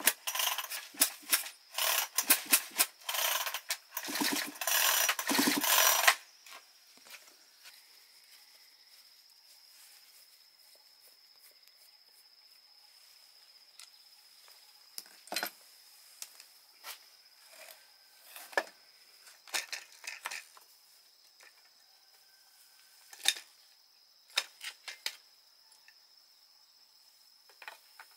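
Rapid metallic clicking and rattling of hand tools and metal parts for about six seconds, then only occasional sharp metal clinks over a steady high-pitched insect tone.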